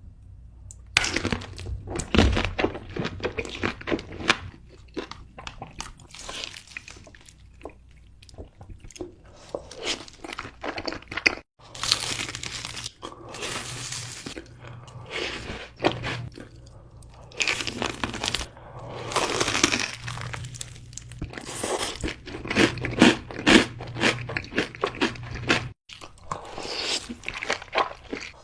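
Close-miked eating sounds: crunchy bites and chewing in dense, irregular bursts of crackling. They stop abruptly twice, about a third of the way in and near the end, with a faint low hum under the middle stretch.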